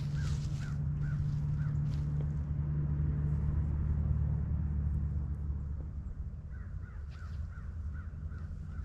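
A bird calling in a quick series of short rising-and-falling notes, about three a second. The calls stop after the first second or so and start again about two-thirds of the way through. A steady low rumble runs under them throughout.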